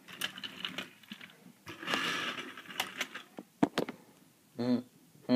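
Faint rustling and a few sharp clicks of toy trains and the camera being handled, with a short pitched sound near the end.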